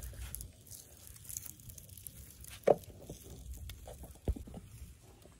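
Faint handling sounds of a raw plucked chicken being worked onto a bamboo skewer by hand, with two short knocks, the louder one about two and a half seconds in and another about four seconds in.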